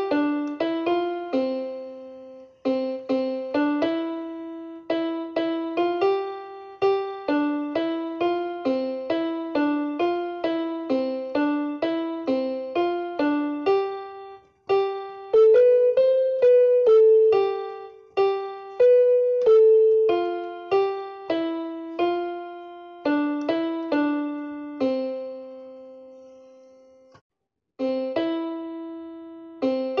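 Background piano music: a slow melody of single notes, each ringing and fading. There is a brief break about halfway, and near the end a long held note fades into a short silence.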